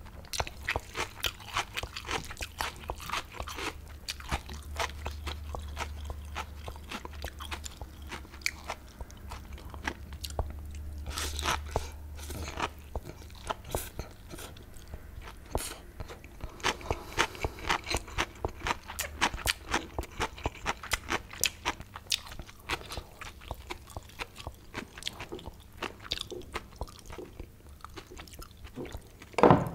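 Close-miked eating of spicy Korean mixed noodles: wet chewing and mouth clicks throughout, with noodles slurped about a third of the way in. One loud, sharp sound comes near the end.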